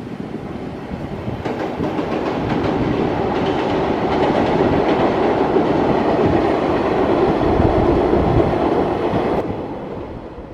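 Freight train hauled by an electric locomotive passing, its wheels clattering over the rail joints. It builds over the first few seconds, is loudest in the middle, and drops off quickly near the end.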